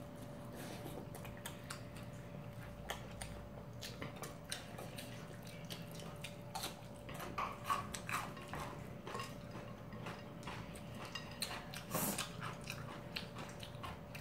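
Close-up eating sounds: chewing and mouth noises from two people eating tteokbokki and cold noodles, with chopsticks clicking against the bowls in many short, scattered sounds. A faint steady hum runs underneath.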